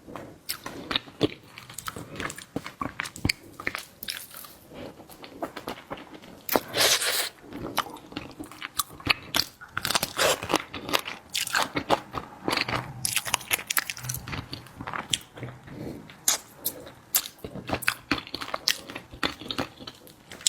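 Close-miked mukbang eating of seafood: irregular biting, crunching and wet chewing, with clusters of louder crunches about seven and ten seconds in.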